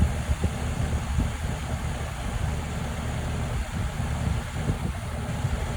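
Air-conditioning compressor running with a steady low hum, a few short knocks scattered through it.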